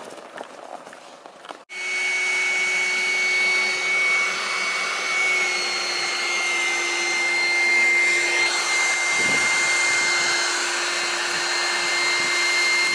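Electric air-bed pump switched on about two seconds in, running with a steady whirring whine at a constant pitch.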